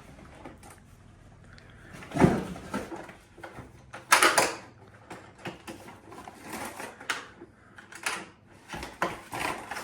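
Items and packaging being handled and set down: a few separate knocks and rustles, the loudest a knock about two seconds in and a rustling burst about four seconds in.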